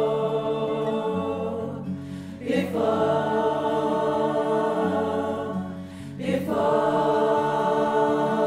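Community choir singing long held notes on the word "before", accompanied by two acoustic guitars, with new sung notes starting about two and a half and six seconds in.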